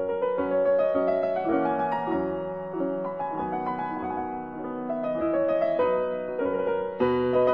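Gentle keyboard music with a piano-like tone, playing a slow melody of held notes over chords. It swells into a fuller, louder passage near the end.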